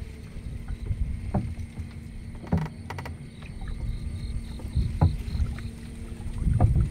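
Gill net being hauled up hand over hand over the side of a small boat and let back down into the water: water splashing and dripping off the mesh, with a few short knocks against the boat.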